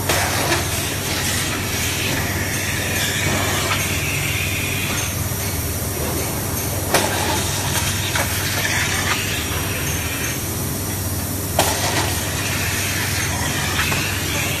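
Rubber injection molding press running with a steady low hum, while compressed air from an air hose hisses on and off over the open mold. A few sharp metallic knocks stand out, the loudest about seven seconds in and another near twelve.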